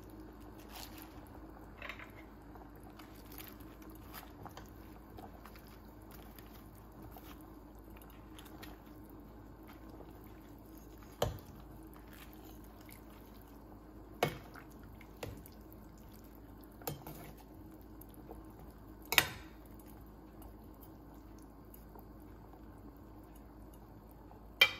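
Pechay leaves and stems being handled into a pot of simmering broth, with faint crunching and liquid sounds over a steady low hum. A metal ladle clinks sharply against the pot several times, the loudest about 19 seconds in and another at the very end.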